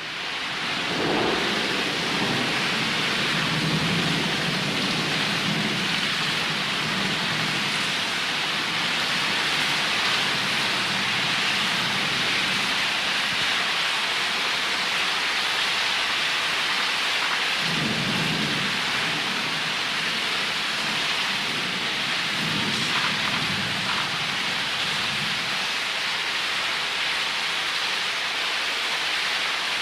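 Thunderstorm: steady rain hiss with rolls of low thunder, fading in at the start. One rumble comes in the first few seconds, another a little past halfway, and more a few seconds after that.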